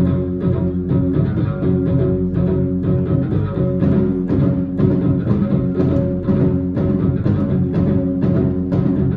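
A live band plays an instrumental passage: two amplified guitars over a drum kit keeping a steady beat of about two hits a second, with sustained low notes underneath.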